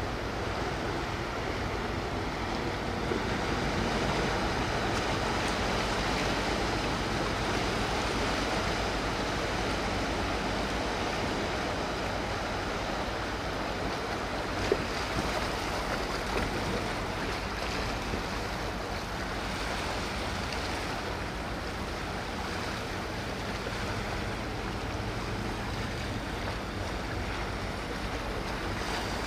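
Low steady hum of a Wightlink hybrid car ferry's engines as it sails past, over water wash and wind. A single sharp knock comes about halfway through.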